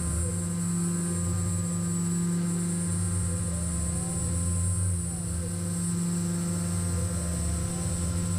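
Tormach PCNC 440 CNC mill's spindle running steadily with a high whine over a low hum, as a 1/8-inch flat end mill slots the coin outlines in 3/16-inch brass bar.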